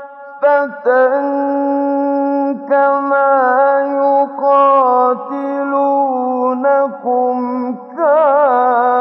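A male voice chanting Qur'an recitation in a slow, melodic tajweed style. Long vowels are held on steady notes and linked by gliding turns, with short breaths between phrases and a wavering ornament near the end.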